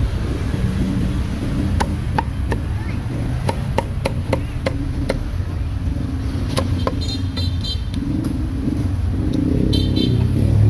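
Meat cleaver chopping roast meat on a chopping block: a run of sharp knocks, about two a second, then a few more after a pause, over a steady low rumble of street traffic.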